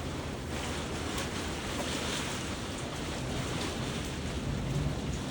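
Steady wash of heavy thunderstorm rain and gusty wind.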